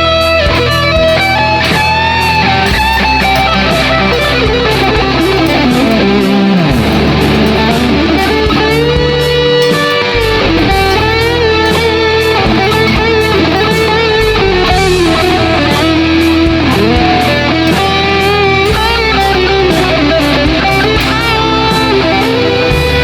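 Difergio MSV electric guitar playing a lead melody with string bends over a backing track of bass and drums.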